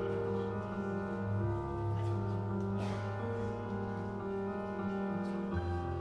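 Slow instrumental music of long held chords that change every few seconds.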